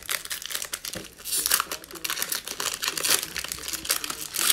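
Foil wrapper of a Panini NBA Hoops basketball card pack being torn open and crinkled in the hands: a dense, continuous crackle, loudest about a second and a half in and again near the end.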